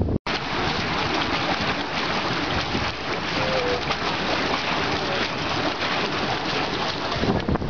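Water gushing and splashing steadily from the outlet of a working drainage windmill, the sign of the mill pumping water.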